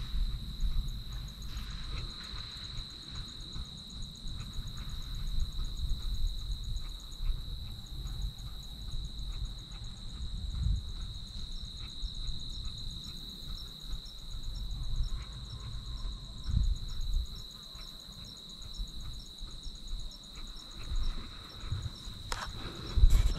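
Insects trilling in a steady high-pitched drone, with a fainter, quicker chirping above it, over a low rumble on the microphone. A few louder knocks come near the end.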